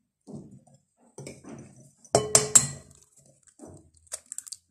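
An egg tapped against the rim of a glass mixing bowl: a quick run of clinks with a short ringing tone a little past two seconds in, followed near the end by faint crackling as the shell is pulled open.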